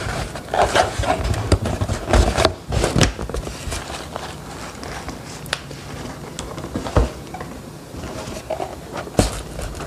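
A cardboard pastry box being handled: rustling and light taps and clicks. These come thickest in the first three seconds, then thin to a few isolated clicks before picking up again near the end.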